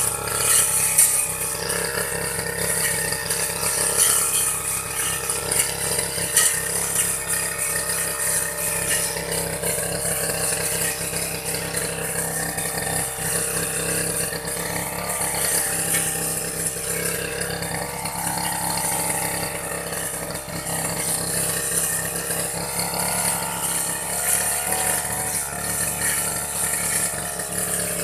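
Engine of an old Aldo grass-cutting machine running steadily while cutting grass.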